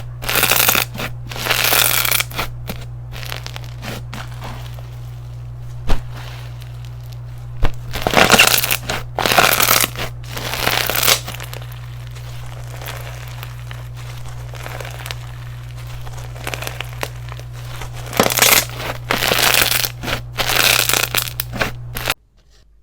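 Slime being squished and pressed by hand, in repeated bursts of crackling and popping with a couple of sharp clicks about six and eight seconds in. A steady low hum runs underneath and cuts off abruptly near the end.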